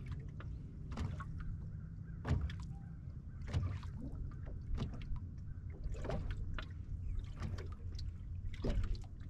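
Boat on the water: a steady low rumble with irregular sharp slaps or knocks about once a second.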